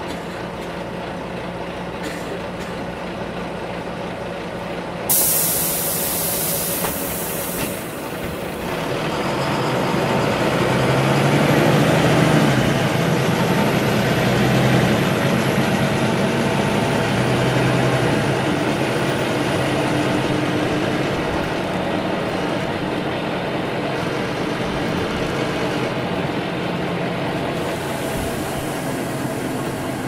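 City bus heard from inside the cabin: a burst of compressed-air hiss about five seconds in, lasting a couple of seconds, then the engine and drive noise build up over a few seconds and run on steadily.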